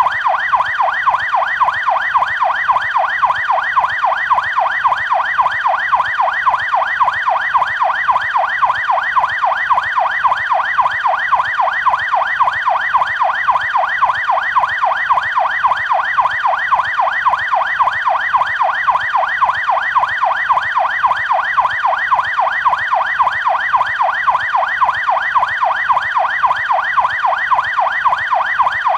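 Canadian police car siren in yelp mode: a fast, unbroken up-and-down wail that repeats several times a second.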